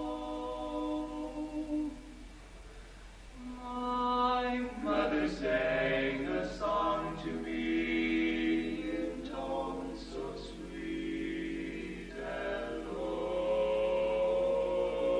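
Male barbershop quartet singing a cappella in four-part close harmony. A held chord fades about two seconds in, and the singing comes back fuller about four seconds in.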